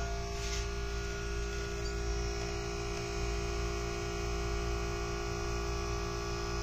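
Small DC motor of a homemade pool cue lathe, run through a PWM speed controller, turning a cue shaft at steady speed: a steady hum with several held tones.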